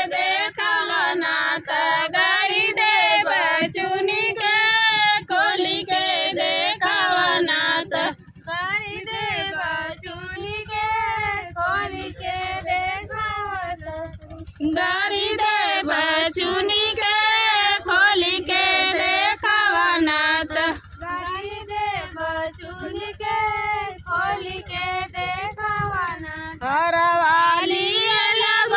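Women singing a Bhojpuri folk song together, unaccompanied, their voices wavering and ornamenting the melody.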